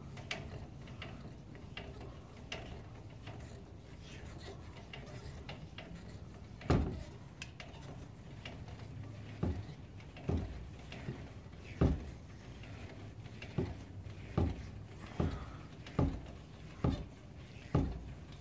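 Metal clinks and knocks from a lug wrench cranking a car jack's extension rod to lower the vehicle, one knock roughly every second in the second half as the handle comes round.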